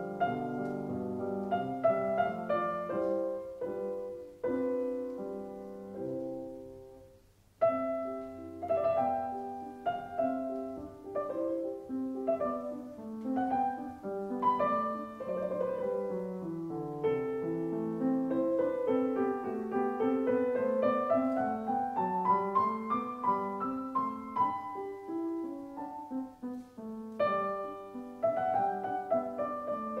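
Background piano music, a melody of sustained notes. It fades out about seven seconds in and starts again a moment later.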